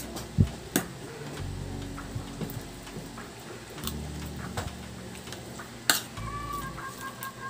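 Metal spoon and fork clinking and scraping on a ceramic plate while eating, with a few sharp clicks, the loudest about half a second in and about six seconds in.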